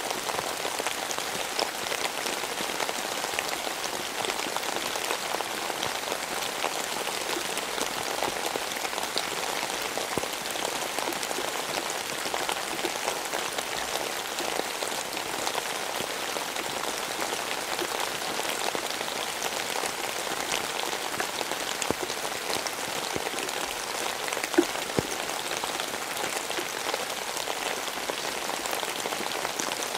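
Steady rain falling on a surface: an even hiss dotted with many separate drop ticks, and two louder drop hits close together late on.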